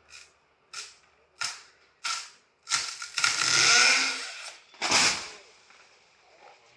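Chopping strikes into a coconut palm trunk, about one and a half blows a second. About three seconds in, a longer, loud rushing crackle follows, and then a heavy crash.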